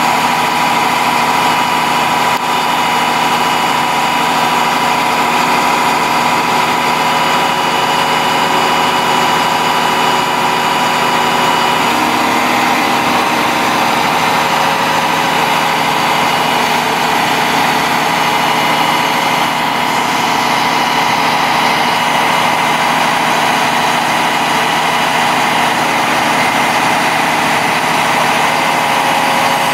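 International DT466 7.6 L inline-six turbo diesel in a 1998 International 4900 truck, idling steadily.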